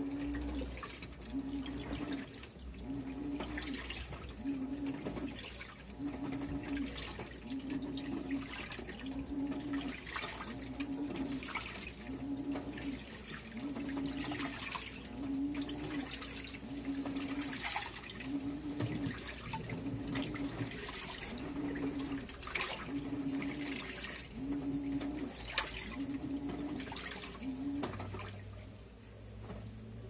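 Electrolux LAI17 17 kg top-load washing machine agitating a load of laundry in water: the motor hums in short pulses about once a second as the drum's washing action reverses back and forth, with water sloshing and splashing. Near the end the pulsing stops and a steady low hum is left.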